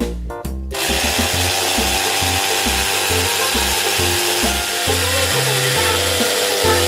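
A toy kitchen appliance's small electric motor whirring steadily. It starts abruptly about a second in, over children's background music.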